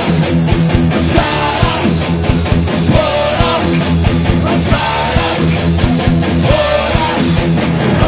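Loud hard rock music: distorted electric guitar over a steady drum beat.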